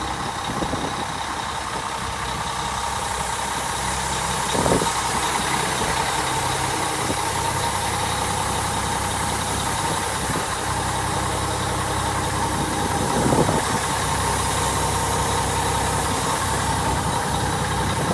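1998 Mack CH613 tractor's diesel engine idling steadily, with two brief thumps about five and thirteen seconds in.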